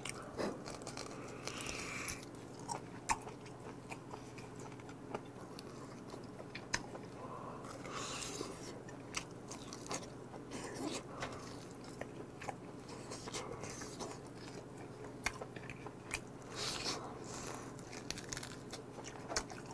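Close-miked biting and chewing as meat is gnawed off a bone held in the hands: irregular sharp clicks and crunches of teeth and mouth, with louder bouts about two, eight and seventeen seconds in.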